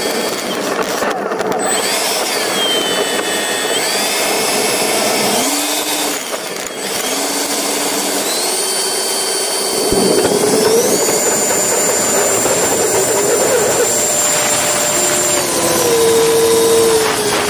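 Electric ducted fans of radio-controlled model jets whining, the pitch stepping and gliding with the throttle over a steady rush of air. About ten seconds in the whine grows louder and climbs as the throttle is opened for the takeoff run.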